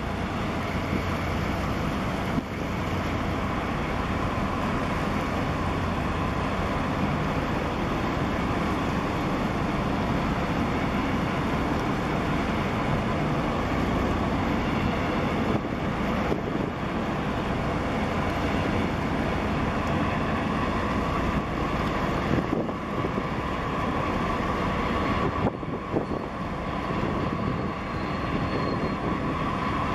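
Steady low rumble of marine engines mixed with wind and water noise.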